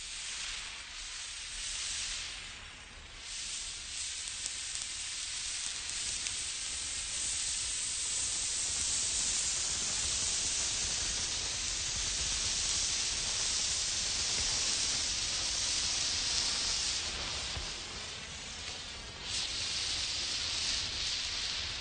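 Emergency flare burning with a steady hiss, growing louder after the first few seconds and dipping briefly near the end.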